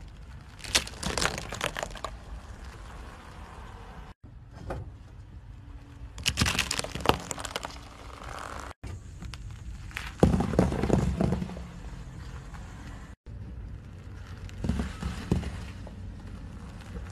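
A car tyre rolling over and crushing small objects in four separate clips, each with a short spell of crunching and crackling as the things break and flatten under the wheel, with brief dropouts between clips.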